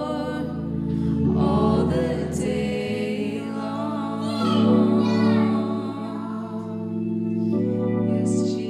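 Worship song: women's voices singing held, wavering notes over sustained chords from a Nord Stage keyboard.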